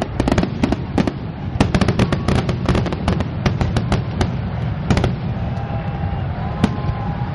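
Aerial fireworks bursting: quick clusters of sharp bangs and crackles for about five seconds, thinning to a single bang near the end, over a steady low rumble.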